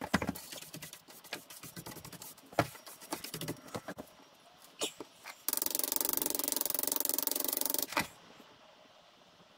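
Scraping and tapping of a wooden tool on green sand in a small casting flask for the first few seconds, then a loud, rapidly pulsing buzz that lasts about two and a half seconds and cuts off suddenly.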